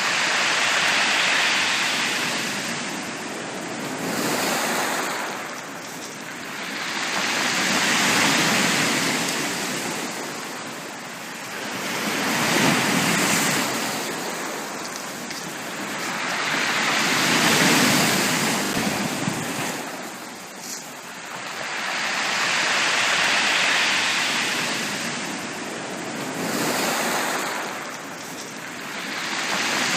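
Sea waves breaking and washing up a beach: a steady rushing noise that surges and falls back in slow, regular swells, about one every four to five seconds.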